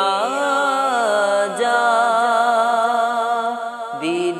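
A male voice singing an Urdu naat in a long, drawn-out melismatic line, the pitch gliding and then held on one note for about two seconds before a new phrase begins near the end.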